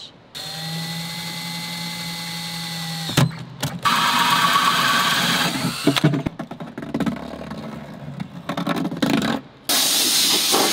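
DeWalt 18V cordless drill with a 4-inch hole saw cutting a hole in a plastic airbox: the drill whines steadily for about three seconds, then runs louder and rougher as the saw cuts into the plastic. A loud hiss starts near the end.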